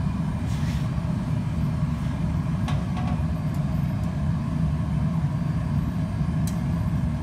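Steady low roar of a glassblowing glory hole's gas burner, with a few faint light clicks of metal tools handling the glass.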